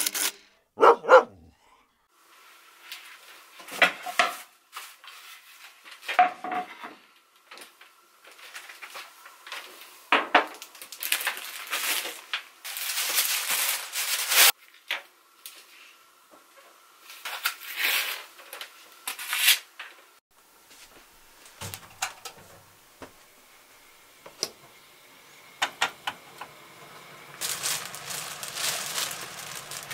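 Kitchen countertop handling sounds: objects set down and moved, with several bursts of rustling a second or more long. A dog barks about a second in, and a low steady hum comes in over the last few seconds.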